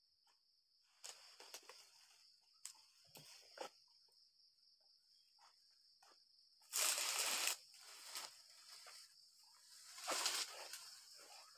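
Knocks and rustles of a dodos chisel on a long pole working at an oil palm's fronds, with a loud rustling crash lasting under a second about seven seconds in and a smaller rustle near ten seconds. A steady high insect trill runs underneath.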